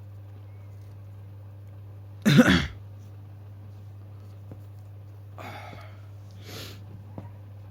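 One short, loud vocal burst from a man, about two seconds in, followed by two soft breaths, over a steady low hum.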